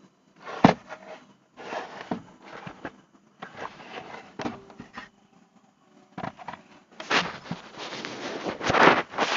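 Handling noise while unboxing a tripod: sharp clicks and knocks with short scraping and rustling bursts, then a louder run of crinkling and crackling from about seven seconds in, like plastic packaging being handled.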